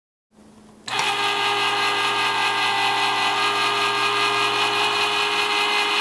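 Electric countertop can opener starting about a second in and running with a steady whine. It turns a food can as its blade cuts around the lid.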